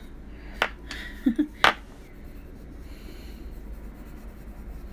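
Faint scratching of a Faber-Castell Polychromos coloured pencil shading on paper, with two sharp clicks and a short throaty breath sound in the first two seconds.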